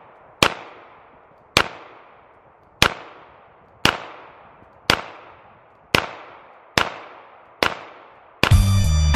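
Glock 19 9mm pistol firing eight shots at a steady pace of about one a second, each crack trailing off in a short echo. The gun cycles cleanly through the string with no stoppage. Music comes in near the end.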